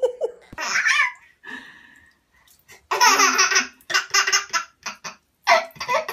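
A baby laughing: a short burst about a second in, then a run of giggling bursts from about three seconds in.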